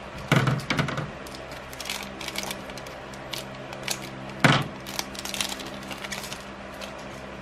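Scissors snipping through a foil booster-pack wrapper, one sharp snip about four and a half seconds in, followed by the crinkling of the foil wrapper as the pack is handled and opened. A smaller knock of cards being handled comes near the start, over a steady low hum.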